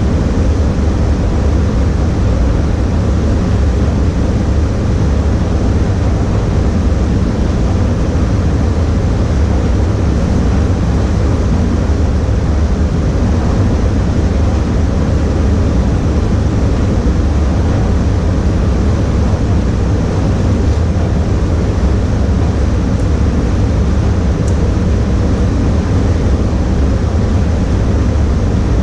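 Steady, loud rushing air and fan noise of an automotive paint spray booth during spraying, heaviest in the low end and unbroken throughout.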